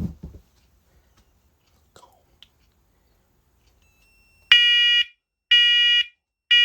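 First Alert Onelink smoke and carbon monoxide alarm in test mode, sounding its smoke pattern. After a few seconds of near quiet with a couple of faint clicks, three loud, high-pitched beeps about a second apart begin about four and a half seconds in.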